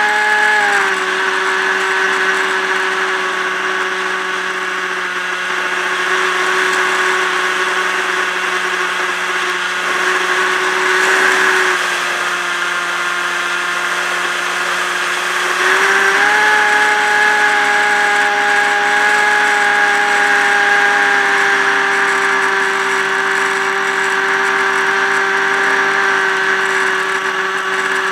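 Multiplex EasyStar RC plane's electric motor and propeller whining steadily, recorded aboard the plane. The pitch drops a little about a second in and again near the middle as the throttle eases. It jumps up a little over halfway through and then sags slowly.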